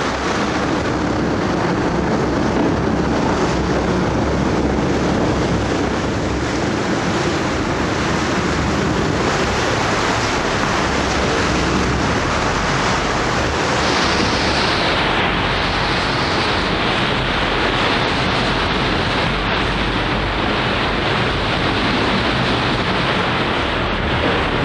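Steady rush of wind on the microphone and sea water with a low rumble underneath, without a break; the hiss becomes duller about two-thirds of the way through.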